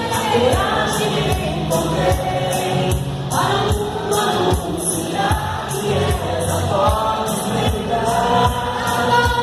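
A group of voices singing a song together over band accompaniment, with a steady drum beat of about two thumps a second.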